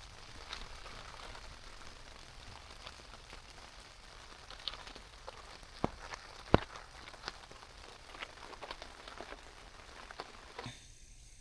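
Rain falling on a tent: a steady hiss with scattered louder drop taps, and one sharp tap about six and a half seconds in. The rain sound cuts off suddenly shortly before the end.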